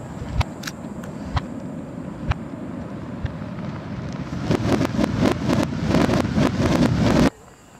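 Aerial fireworks played backwards: a few sharp single reports over a steady low rumble, then a dense crackle that swells from about four seconds in and cuts off abruptly near the end.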